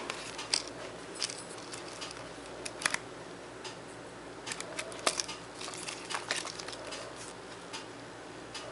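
Packaging of a boxed pair of football boots being handled: irregular rustling and crinkling with scattered sharp clicks and taps, over a faint steady hum.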